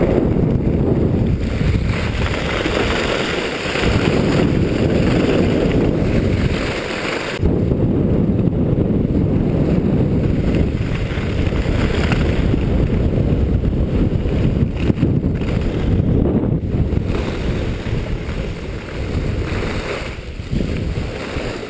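Wind buffeting the microphone during a downhill ski run, a loud, continuous low rumble, mixed with the hiss and scrape of skis over packed snow. The rush eases a little near the end as the skier slows.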